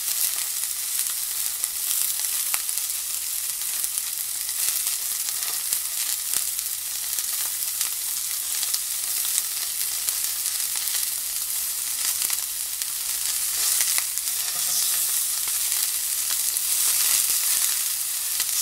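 Beef sizzling on a hot tabletop grill: a steady crackling hiss with many small pops of fat.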